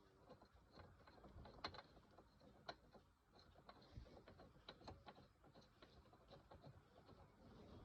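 Faint, irregular metallic clicks and ticks of aftermarket steering wheel hub and quick-release parts being worked by hand.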